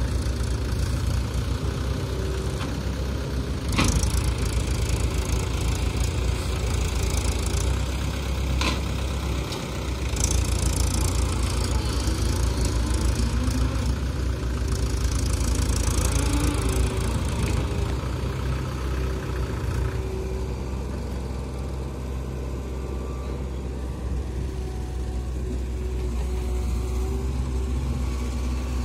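Diesel tractor engines running with a steady low throb, one of them hauling a loaded trolley through mud. Two sharp knocks come about four and nine seconds in.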